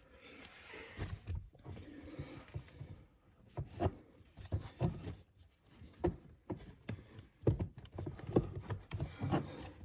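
Plastic car interior trim panel being worked loose by hand: irregular clicks, knocks and rustling as it is pulled and handled.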